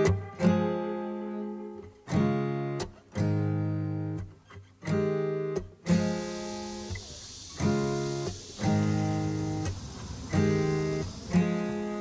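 Acoustic guitar music: strummed chords, each struck and left to ring out, about one every second or so.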